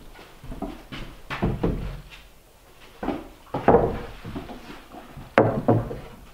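Rough-sawn wooden battens being handled and laid down on a stack of boards, knocking and clattering against each other in a string of separate knocks, the sharpest one about five seconds in.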